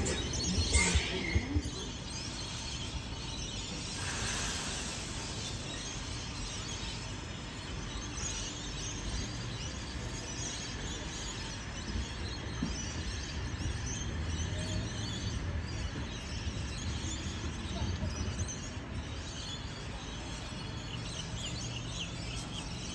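Station platform ambience: the last wheel noise of a departing train dies away in the first second or two. From about halfway through, a Sydney Trains H-set (OSCAR) double-deck electric train approaching at slow speed adds a low rumble that slowly builds.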